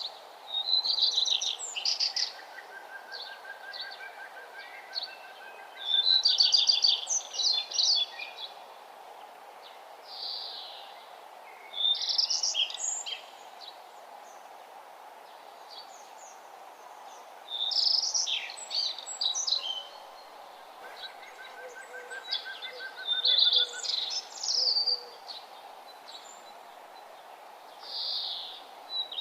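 Songbirds singing: bursts of high, rapid chirping phrases every few seconds, with a softer, lower trill in between. A steady background rushing noise runs under the song.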